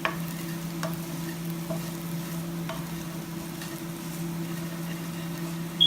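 Scrambled eggs sizzling in a pan of oil, with a utensil tapping the pan now and then, over the steady hum of a kitchen fan. A sharp, high ping near the end.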